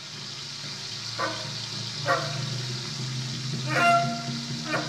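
Amplified steady sizzle of a brass saxophone deep-frying in hot oil, over a low sustained hum. Short pitched squeals, about four of them, come from the saxophone mouthpiece being blown.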